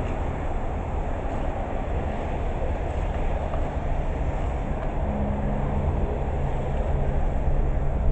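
A small 50cc engine running steadily: an even mechanical rumble with a low hum underneath.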